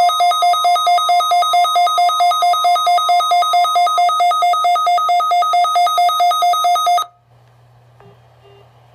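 NOAA weather radio receiver going off for its weekly test: a loud, rapid two-tone beeping of about four beeps a second over the broadcast's steady warning alarm tone. The steady tone stops about four seconds in, and the beeping cuts off suddenly about seven seconds in, leaving a low hum.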